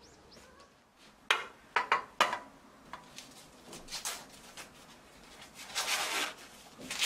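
Husks being torn and peeled off fresh ears of supersweet corn: a few sharp crackling rips about a second in, then longer rustling tears near the end. Faint bird chirps are heard in the first moment.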